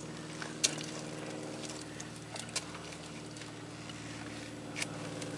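Footsteps and scuffs of a hiker on a steep, rocky trail: a few sharp clicks, about half a second in, at two and a half seconds and near the end, over a steady low hum.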